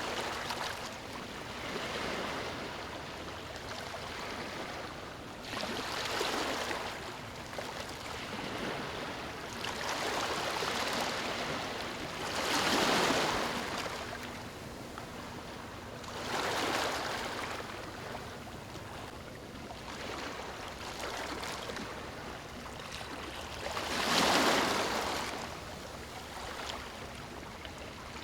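Moving water washing in surges every three to five seconds over a steady background wash. Two of the surges, about halfway through and near the end, are louder than the rest.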